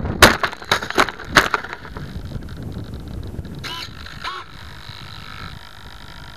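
A Bixler 2 foam RC plane bumps and skids across wet, slushy ground, heard from a camera on the plane: a handful of sharp knocks and scrapes in the first second and a half. It then comes to rest, leaving a faint steady hum with two short chirps a little past the middle.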